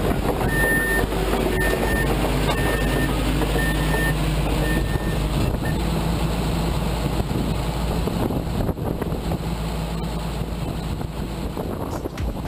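Volvo EC360LC excavator's diesel engine running steadily as it tracks overhead. A machine alarm beeps about once a second for the first five seconds.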